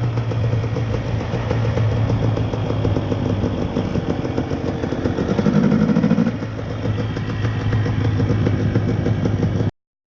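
Dirt bike engine running steadily under way. Its note rises briefly about halfway through, and the sound cuts off suddenly near the end.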